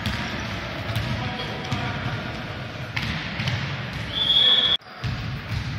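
A basketball bouncing on a hardwood gym floor with repeated low thuds over the murmur of a large hall, then a single referee's whistle blast about four seconds in, the loudest sound, which cuts off abruptly.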